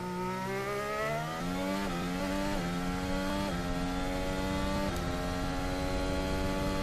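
Formula 1 car's 1.6-litre turbocharged V6 hybrid engine accelerating hard at full throttle out of a slow corner. The engine note climbs and drops back at each of four quick upshifts, then holds high and steady at top revs.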